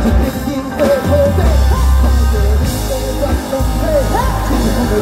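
Live rock band playing a song: a male and a female singer's vocals over drums, bass, and electric guitar, with a heavy bass line.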